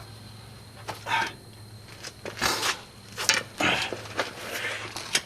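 Metal pry bar clanking and scraping as it levers at a stuck CV axle on a 1997 Honda Civic, in about five separate strokes; the axle is not coming free.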